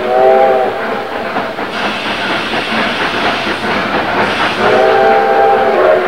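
Steam locomotive whistle sounding several tones at once: a short blast at the start and a longer blast about four and a half seconds in, over the steady rumble and clatter of a train rolling on the rails.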